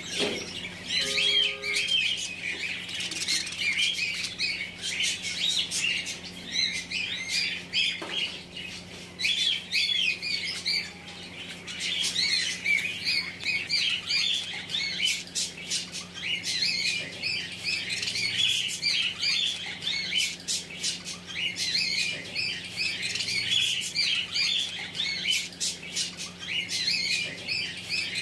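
Budgerigars chattering: a continuous run of quick, high warbling chirps, clicks and squawks, over a faint steady hum.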